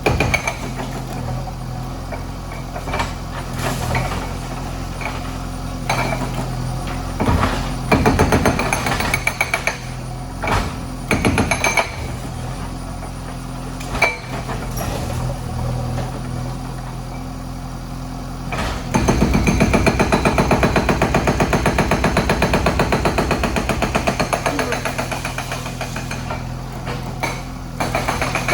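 Backhoe loader's diesel engine running steadily while its hydraulic breaker hammers: short bursts about 8 and 11 seconds in, and a long run of rapid hammering from about 19 to 27 seconds in. Scattered single knocks fall in between.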